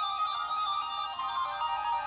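Pusheenicorn plush sound toy's electronic sound chip playing its tinny little song when squeezed: a simple melody of short, stepped beeping notes.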